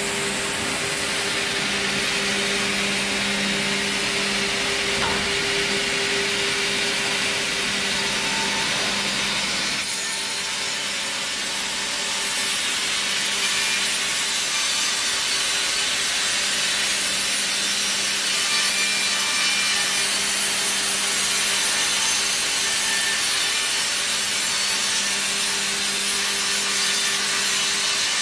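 Sawmill debarker liner, a small electric-motor-driven circular blade, cutting a groove through a log's bark ahead of the band saw: a steady rasping cut over a low motor hum. The scored line clears the bark from the band saw's path. After a change about ten seconds in, the sound is a little louder.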